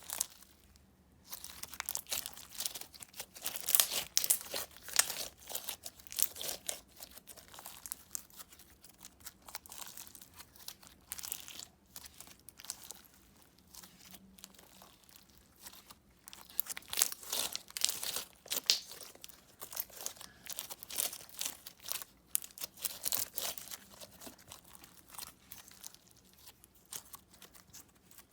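Slime being squeezed, stretched and pressed by hand, making irregular crackling and clicking pops in clusters with short pauses.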